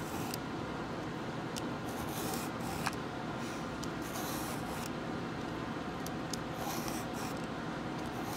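Handheld julienne peeler scraping down a raw carrot in repeated strokes, shredding it into thin strips, with a few light clicks over a steady background hum.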